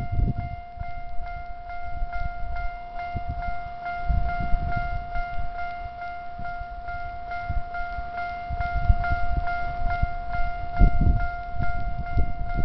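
Japanese railway level-crossing warning bell ringing: an electronic bell tone repeated at a rapid, even rhythm, with irregular bursts of low rumble underneath.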